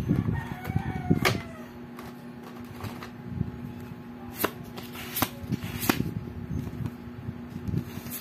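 Exploding Kittens playing cards being handled and fanned through in the hands: a heavier rustle near the start, then lighter sliding with a few sharp card clicks.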